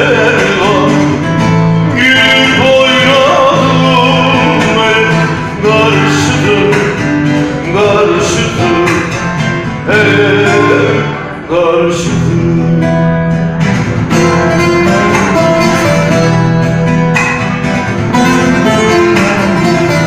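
Bağlama (long-necked Turkish saz) played in a Turkish folk tune, plucked and strummed in quick runs of notes.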